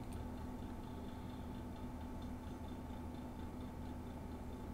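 Steady low electrical hum with faint, irregular light ticks over it.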